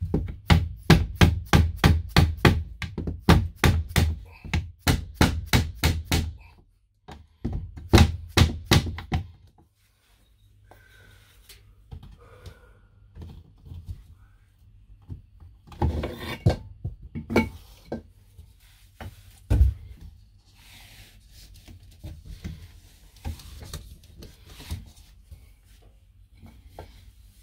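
A soft-blow hammer tapping a small wood block in quick succession, about three to four sharp taps a second, driving a slide bar onto the edge of an RV window pane; after a brief pause a second short run of taps. Then quieter rubbing and handling at the window, with a few louder knocks later.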